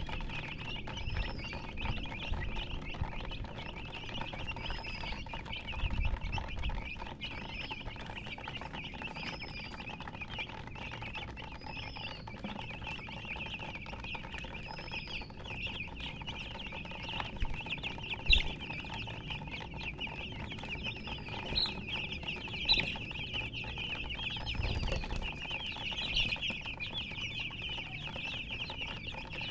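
A brood of chicks peeping without pause in a dense, high chorus, with a single louder rising-and-falling peep standing out about every two seconds. A few short knocks break in, the sharpest about eighteen seconds in.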